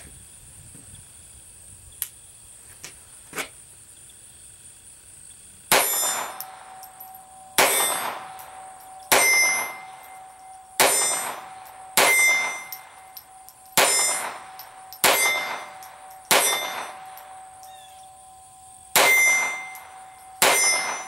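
Browning 1911-22 Compact .22 LR pistol fired ten times at an unhurried pace, starting about six seconds in. A metallic ring lingers after each shot.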